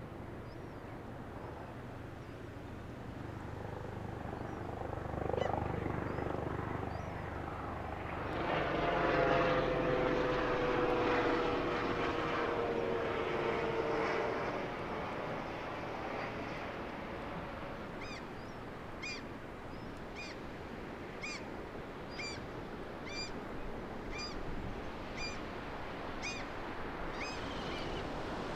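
An engine drone passes by, loudest from about eight to fourteen seconds in, with one tone that falls slowly before it fades. In the last ten seconds short high chirps repeat about twice a second.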